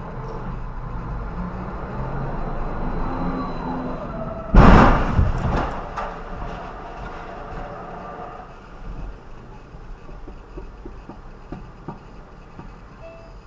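A trolleybus striking the side of the car, heard from inside the car: a sudden loud bang about four and a half seconds in, with a second or so of rattling that dies away, then a few light knocks over steady traffic hum.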